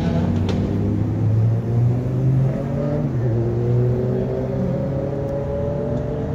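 Car engine running, its pitch rising slowly and steadily as the vehicle pulls away gently.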